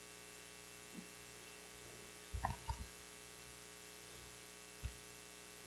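Faint steady mains hum, with a few soft low thumps about two and a half seconds in and one more near the end.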